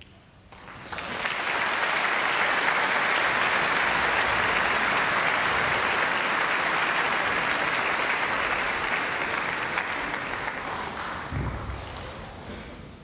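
Concert-hall audience applauding, rising quickly about a second in, holding steady, then fading away near the end.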